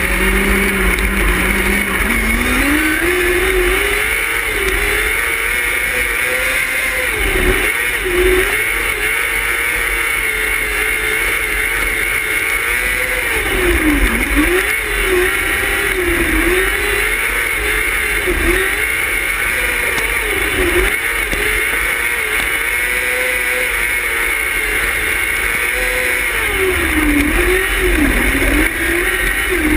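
Engine of a non-wing micro sprint car, heard onboard while racing: the note is low for the first couple of seconds, then climbs as the car accelerates, and from then on rises and falls repeatedly, dipping each time the driver lifts for a corner.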